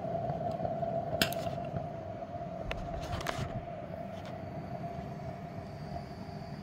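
Gas burner of an Accucraft C16 live-steam model locomotive burning steadily with a constant humming tone over a low rumble, as the boiler is raised to steam. Two brief bursts of noise come about one and three seconds in, and a faint high tone joins about two-thirds of the way through.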